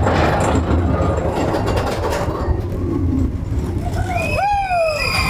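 Expedition Everest roller coaster train running along its steel track with a steady low rumble. About four seconds in a high wheel squeal sets in, wavering at first and then holding steady.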